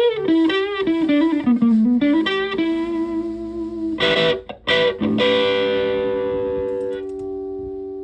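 Electric guitar with humbucker pickups played through a heavily modified Buzzaround fuzz pedal: a quick lead phrase of single notes with bends and vibrato, then two short chord stabs about four seconds in, and a final chord left to ring and slowly fade.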